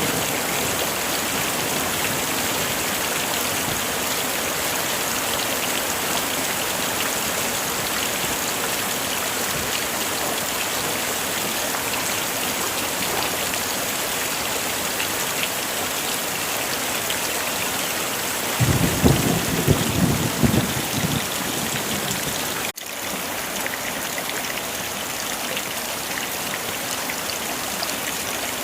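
Heavy rain falling steadily. About two-thirds of the way through, thunder rumbles for about three seconds; shortly after, the sound cuts out for an instant and resumes a little quieter.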